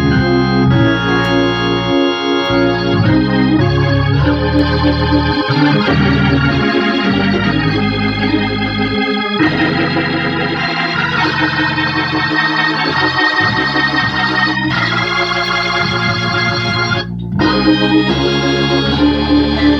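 Hammond organ chords played through a single-speed Leslie 22H speaker cabinet driven by a freshly refurbished Leslie 147 tube amplifier. The held chords change every second or two, with a short break about 17 seconds in.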